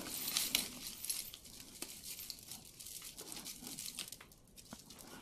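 Costume jewelry being handled and rummaged through: scattered small clicks and clinks of metal and beads knocking together, busier in the first second or so.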